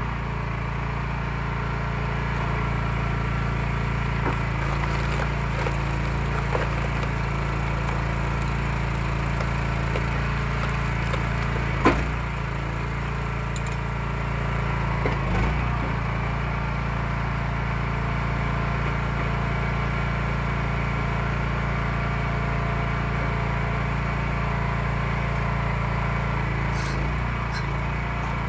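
Eastonmade 12/22 log splitter's engine running steadily at a constant pitch, driving the splitter's hydraulic pump. One sharp knock comes about twelve seconds in, and a lighter knock a few seconds later.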